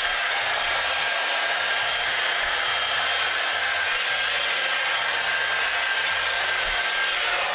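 Handheld hair dryer running steadily, a loud rush of air with a faint steady whine in it, switched off abruptly at the very end.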